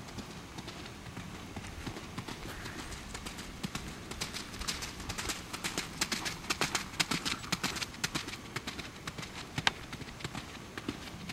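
Hoofbeats of a ridden Welsh pony trotting and cantering on arena footing, a quick run of thuds and clicks that grows loudest in the middle few seconds as the pony passes close.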